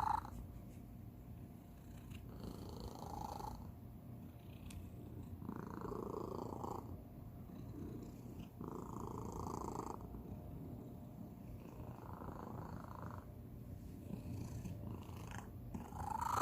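A domestic cat purring steadily, an unusual purr: a higher, reedy tone rises over the low rumble for about a second, roughly every three seconds.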